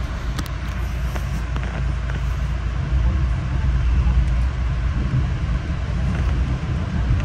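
Metro-North commuter train running at speed, heard from inside the passenger coach: a steady low rumble of wheels on rail, with a few faint ticks. It grows a little louder about three seconds in.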